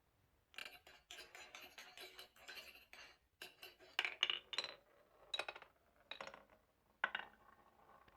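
Glass marbles rolling down a marble run, clicking and clinking against the track and against each other in quick clusters. The sharpest clacks come about four seconds in and again near seven seconds.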